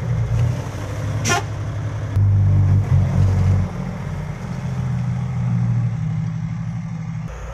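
Six-wheel dump truck's diesel engine running loudly through its exhaust, revving up about two seconds in and then easing back to a steady run. A brief high-pitched sound cuts through about a second in.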